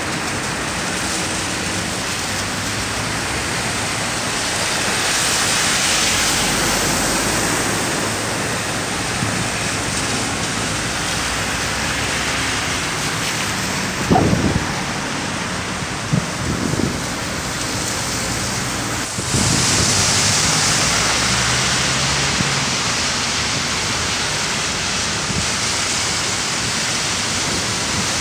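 Traffic driving through a flooded street: a steady rush of tyres swishing through standing water, swelling louder twice as vehicles pass. A few short bumps come around the middle.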